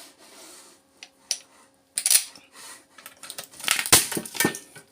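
Sharp cracks, clicks and snaps as a part of a power adapter is twisted and broken loose by hand. There is one loud crack about two seconds in, and the cracking comes thick and fast near the end.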